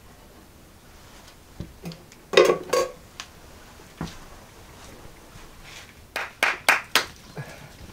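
Scattered knocks and clacks: two close together about two and a half seconds in, then a quick run of four or five within about a second near the end.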